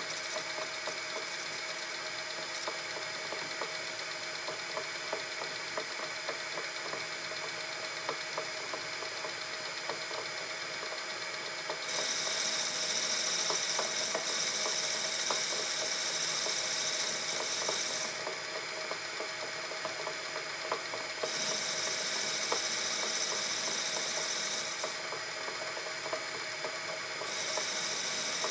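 Metal lathe running and turning a mild steel bar, a steady machine whine with a fine rattle of the gearing. A higher hiss comes in about twelve seconds in and comes and goes three times.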